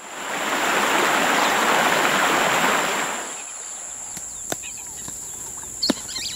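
Rushing water of a waterfall for about three seconds. It gives way to a quieter forest background with a steady high insect drone, a few sharp clicks as a cardboard box is opened, and short bird chirps near the end.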